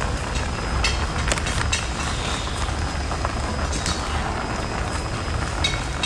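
Close-miked eating sounds: scattered wet clicks and sucks as a spicy sea snail is pulled out of its shell and eaten, over a steady low rumble.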